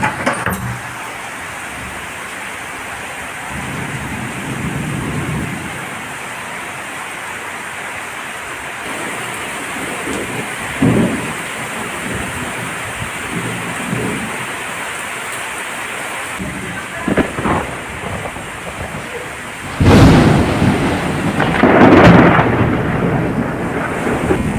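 Heavy rain falling steadily during a thunderstorm, with thunder rumbling several times. A loud thunderclap breaks about twenty seconds in, followed by another about two seconds later, the loudest moments.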